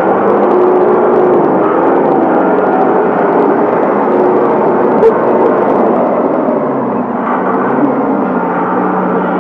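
John Deere 5310 tractor's diesel engine working hard, its pitch rising and falling as the tractor churns through a muddy, water-filled trench. A single sharp knock about five seconds in.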